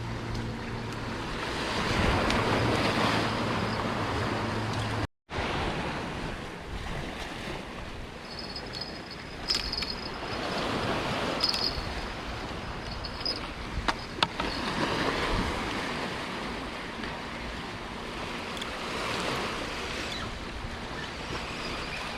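Ocean surf washing in and out, the rush swelling and fading every few seconds. A low steady hum underlies the first five seconds and stops at a brief dropout.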